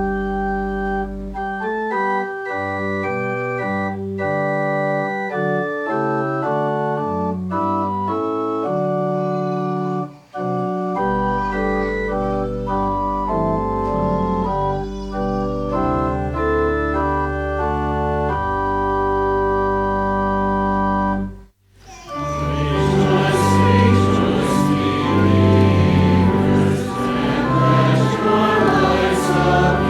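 Church organ playing a hymn introduction in sustained chords. After a brief pause about 21 seconds in, the organ resumes with voices singing along.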